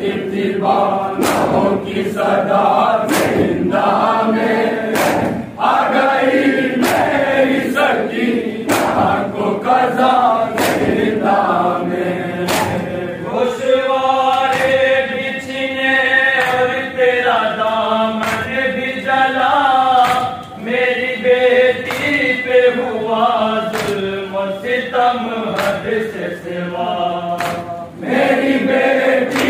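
Men chanting a nauha (Urdu mourning lament) in unison, with longer held notes in the middle. Steady rhythmic hand slaps of matam (chest-beating) keep time, about one every half second or so.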